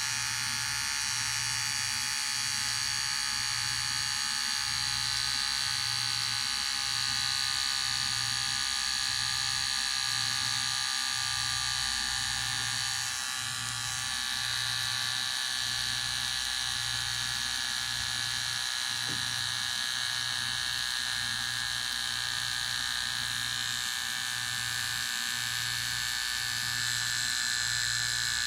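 Electric hair clipper running with a steady, high-pitched buzz, dipping briefly about halfway through.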